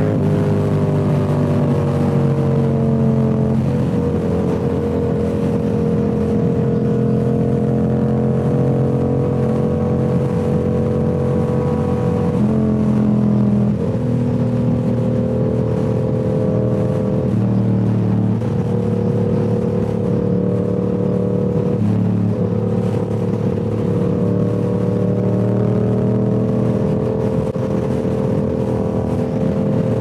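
Yamaha R7's parallel-twin engine running through a Toce full-system exhaust while the bike is ridden at a cruise. The note climbs at the start, then holds mostly steady, shifting up or down a little in pitch several times as the throttle changes.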